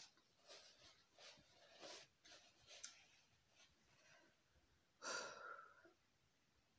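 Close-miked chewing of roast meat (nyama choma), a string of soft, wet mouth sounds, then one louder breathy sound about five seconds in.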